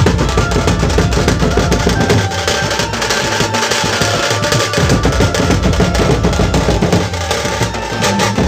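Dhumal band drumming: a troupe of large double-headed barrel drums beaten together with sticks in a fast, dense, loud rhythm with a heavy deep bass.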